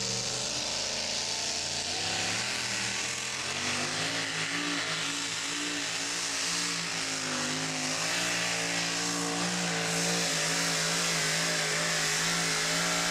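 Modified two-wheel-drive pulling truck's engine running wide open as it drags a weight-transfer sled, its note wavering up and down throughout, over a loud hiss of exhaust and spraying dirt.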